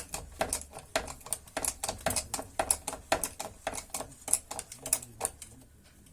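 A jack being pumped up under a car's suspension control arm, a rapid regular clicking at about four clicks a second that stops about five and a half seconds in. The arm is being raised bit by bit to take the anti-roll bar's load off the stabilizer link.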